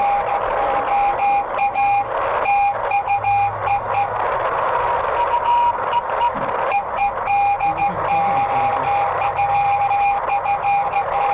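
Receiver audio from a YouKits HB-1B shortwave transceiver tuned to the 40 m band on lower sideband, played through a small portable speaker. It gives a hiss of band noise with steady whistling carrier tones, and a shorter higher tone comes in midway. The sound keeps cutting out briefly.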